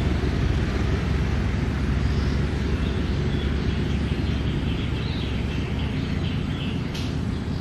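Steady low outdoor rumble, with faint high bird-like chirps through the middle and a single sharp click near the end.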